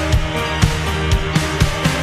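Live rock band playing a steady drum beat, about two hits a second, under held bass and guitar tones.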